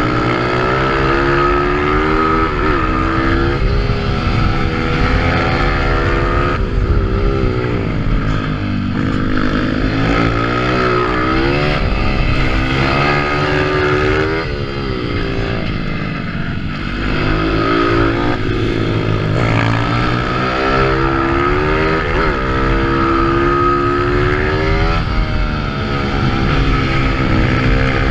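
Single-cylinder 140cc pitbike engines revving hard from on board. The pitch climbs through the revs again and again and drops sharply as the rider shifts or backs off for corners.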